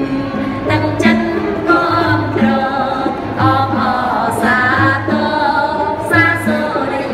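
Singing of a Khmer song with instrumental accompaniment, carried over a low note that pulses at an even pace.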